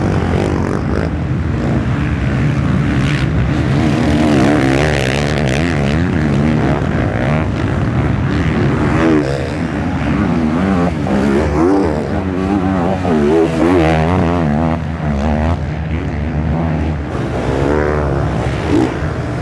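Dirt bike engines running and revving on a sand track, several at once, their pitch wavering up and down continually as riders open and close the throttle.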